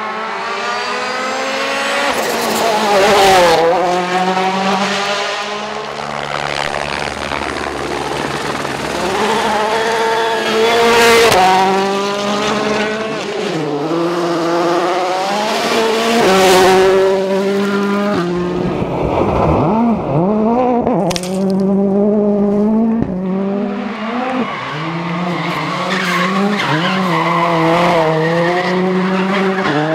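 Rally cars at full stage speed, engines revving high and climbing through the gears with sharp drops at each shift and under braking, several cars passing close by in turn.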